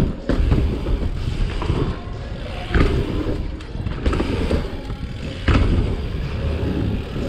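Mountain bike ridden fast over dirt and wooden track: a steady rumble and rattle of tyres and frame, broken by sharp knocks from landings, the strongest about three seconds and about five and a half seconds in.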